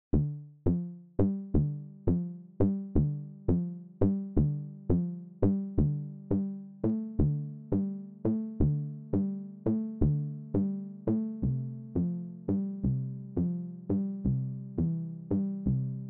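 Background electronic music: a steady beat of short, quickly fading synthesizer notes, about two a second, over a low repeating figure.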